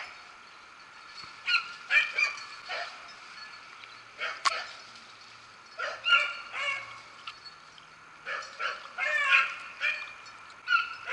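Beagles baying in short bursts from the brush, the cry of rabbit hounds trailing a rabbit's scent, with one sharp click midway.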